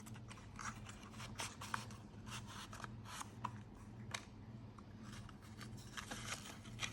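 Faint handling of the torch's packaging: small scrapes, taps and rustles of cardboard and plastic being moved about, over a low steady hum.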